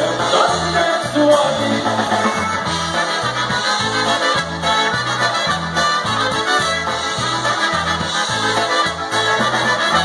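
Live polka band playing a polka: accordion and trumpets over a steady bouncing bass line.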